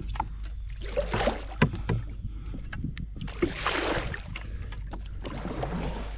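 Oars pulling through the water from a rowboat, two strokes about two and a half seconds apart, with light knocks in between.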